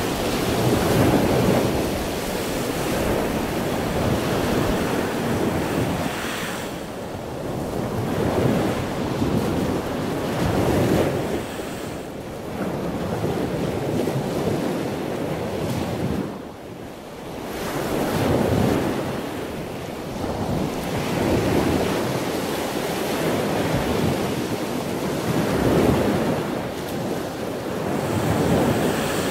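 Heavy storm surf breaking and washing up the beach, with wind buffeting the microphone. The rush of water swells and fades every few seconds.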